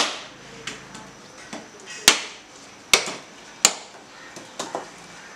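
Whole coconuts being split in half by hand with hard strikes, a sharp crack roughly every second, some much louder than others. It is the breaking stage of making copra, where the halves are laid out to sun-dry.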